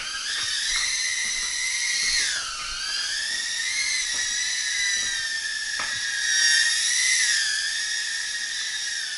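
Floureon FX10 micro quadcopter's tiny motors and propellers whining in flight, a high pitched whine that wavers up and down as the throttle changes, dipping about two and a half seconds in and rising again.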